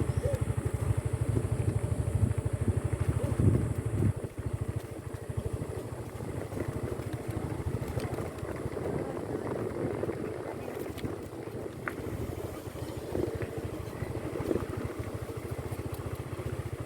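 Vehicle engine running with a rapid, even beat, louder for the first four seconds, then easing off, and picking up again near the end.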